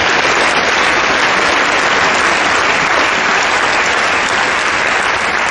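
Tennis spectators applauding at the end of a point, a dense, steady clapping from the crowd.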